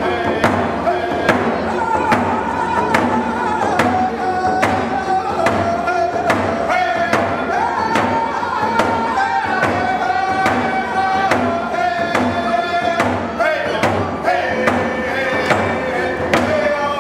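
Two men singing a Mi'kmaq song with long held notes, each beating a hand-held frame drum with a beater in a steady, even beat of about three strokes every two seconds.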